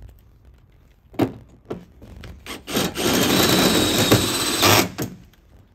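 A few knocks as a cordless drill is set against a steel roof-beam bracket, then about two seconds of the drill boring through the sheet metal with a steady grinding noise and a faint high whine. It stops abruptly near the end.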